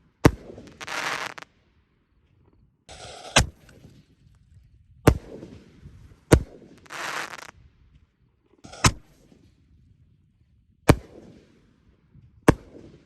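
Fireworks going off: seven sharp bangs, one every one and a half to two and a half seconds, several with a short hissing rush just before or after the bang.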